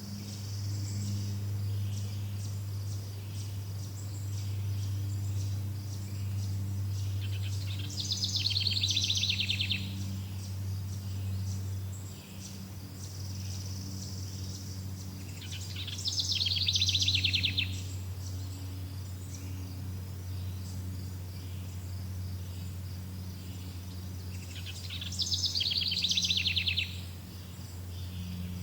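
Wild bird giving a rapid trill three times, each lasting about two seconds, about eight seconds apart, over a steady high insect-like chirring and a constant low hum.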